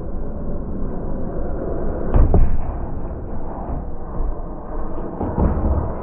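Scrap metal being thrown from a truck bed onto a scrap pile: a muffled, rumbling clatter with two heavier thuds, about two seconds in and again about five seconds in.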